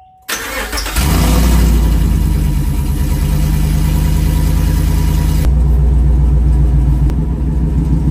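2014 GMC Sierra's 5.3-litre V8 being cranked by the starter and catching about a second in, then idling loudly through long-tube headers with the exhaust not yet finished. It is being started to check for leaks at the freshly taped header joints.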